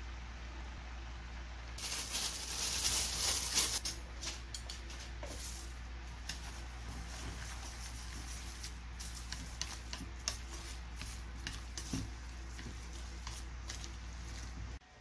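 Crisp dried seaweed rustling and crackling loudly for about two seconds, then chopsticks clicking and scraping against a stainless steel pan as spaghetti is tossed with the seaweed, over a steady low hum. The sound cuts off abruptly just before the end.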